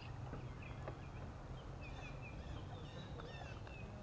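Birds chirping in many short, gliding calls over a steady low rumble, with a few faint clicks from a hand can opener working around a can of sweet corn.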